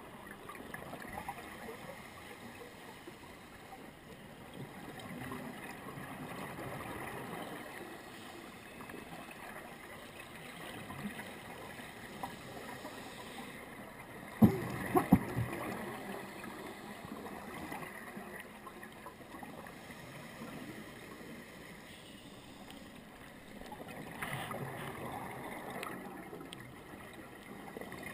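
Underwater ambience picked up by a diving camera: a steady wash of water noise with gurgling swells from a scuba diver's exhaled bubbles. About halfway through come three sharp knocks.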